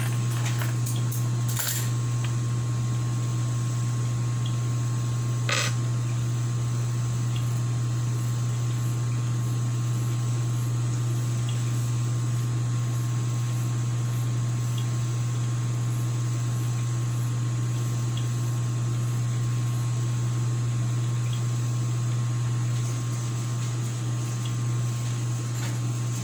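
A steady low electric motor hum, with a few sharp clicks in the first six seconds.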